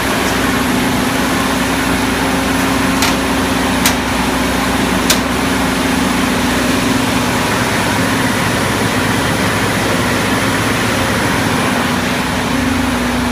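Air-A-Plane AC 2030DE aircraft ground air-conditioning unit running steadily just after a successful start, its engine and blowers giving a constant deep hum. A few light clicks sound about three to five seconds in.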